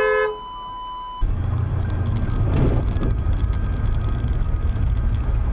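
Steady low rumble of a car driving at highway speed, road and engine noise picked up by a dashcam, starting abruptly about a second in after a short steady beep tone.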